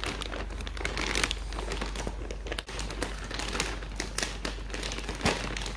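Plastic courier mailer bag crinkling and rustling as fingers pull at its sealed edge, with a sharper crackle about five seconds in.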